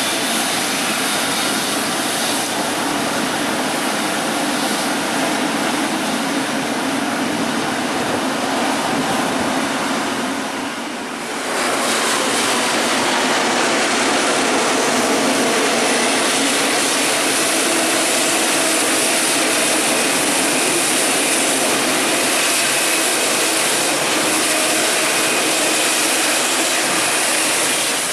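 Jet airliners' turbofan engines running, a loud steady rushing noise. About eleven seconds in it dips briefly and changes to another steady stretch of engine noise.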